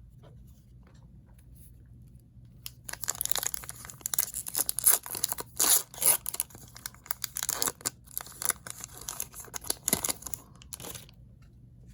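A trading-card pack wrapper being torn open and crinkled by hand: quiet at first, then about three seconds in a run of irregular ripping and crinkling that lasts until near the end.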